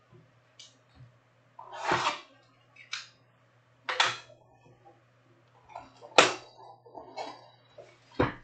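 Cardboard trading-card boxes being handled and set down on a table: about five separate knocks and scrapes, the sharpest about six seconds in, over a faint steady low hum.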